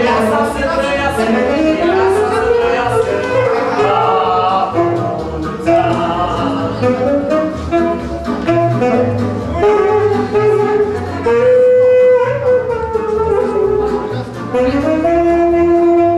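Saxophone playing a wedding melody full of slides and bends over a pulsing bass accompaniment.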